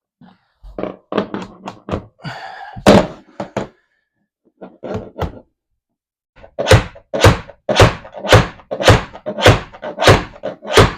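Hammer driving a finishing nail into wooden quarter-round trim through a drilled pilot hole. A few lighter taps, a short pause, then a steady run of about nine blows, roughly two a second.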